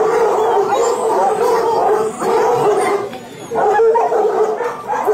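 A large pack of hunting hounds baying and howling together in a continuous chorus of overlapping cries, dipping briefly about three seconds in before swelling again. They are excited, waiting for the meat laid out in front of them.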